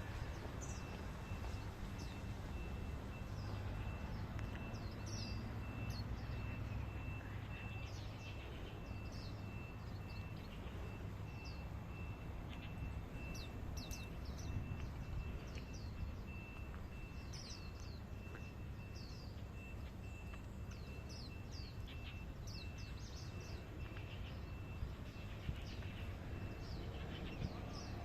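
Birds chirping and calling with many short, high notes, over a steady, rapidly pulsing insect buzz typical of cicadas and a constant low background rumble.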